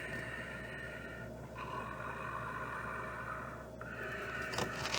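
Quiet room tone with a steady faint hum, and a faint click or rustle near the end.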